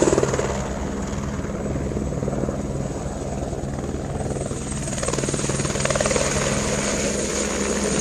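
Helicopter running steadily, its rotor beating fast with a steady engine tone underneath.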